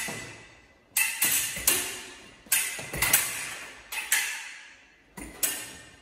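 Steel foil blades striking and beating against each other: sharp metallic clicks with a short ring, in quick groups of two or three, about ten in all, with dull thuds of footwork on the floor under some of them.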